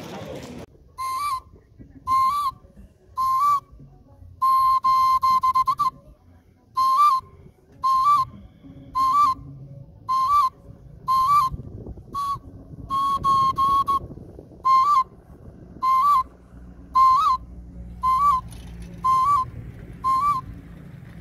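A shrill hand-held whistle blown in a long run of short blasts at one high pitch, about one a second, with a couple of longer held notes among them.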